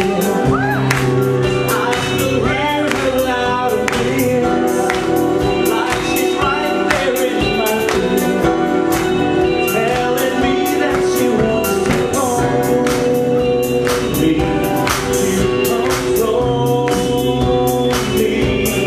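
Live band music with singing over a steady drum beat; an electric band with vocals.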